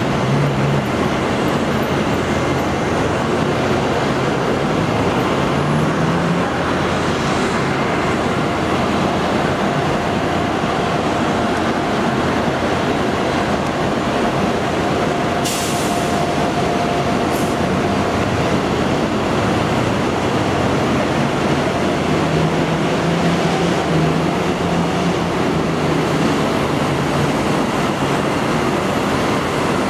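Steady, loud roar of jet aircraft on an airport apron, with a faint steady whine in the middle and two short clicks about halfway through.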